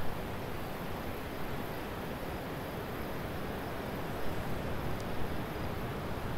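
Steady rushing roar of wind from a tornado tearing up a grove of trees, a sound like a waterfall.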